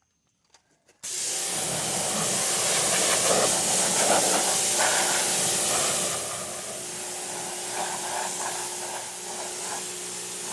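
Pressure washer spraying a hoisted small-tractor engine: a loud, steady hiss of the water jet that starts about a second in and eases a little partway through.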